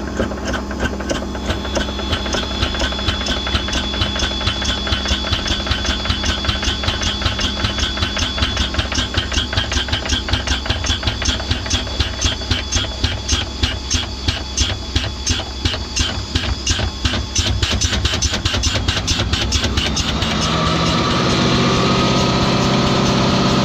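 PTO-driven pump or compressor on a Ford F550 service truck, running with a fast, even pulsing over the hum of the truck's Power Stroke diesel. About 20 seconds in, the pulsing gives way to a smoother, steady drone.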